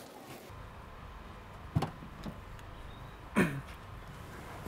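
Low steady rumble from a parked car, with two short knocks about a second and a half apart; the second knock is followed by a brief falling tone.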